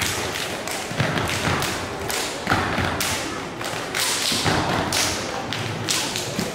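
Step team stepping: a run of sharp stomps, slaps and claps landing every half second or so.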